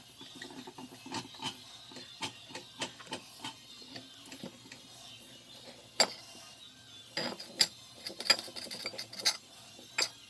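Kitchen utensil handling while cutting up raw tuna: light scraping and rubbing with scattered clicks, then a run of louder sharp clinks in the second half.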